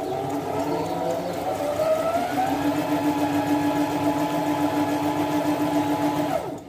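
Singer mini-size sewing machine's small electric motor running. It speeds up over the first two and a half seconds, runs at a steady pitch, then slows and stops just before the end.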